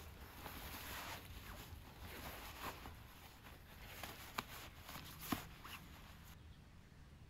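Faint rustling and handling noises with two sharp clicks about four and five seconds in; the rustling stops about six seconds in.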